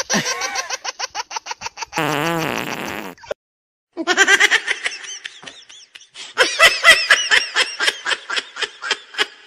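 Rapid bursts of laughter, broken about two seconds in by a buzzy fake fart sound lasting about a second, then a brief silence and more laughter.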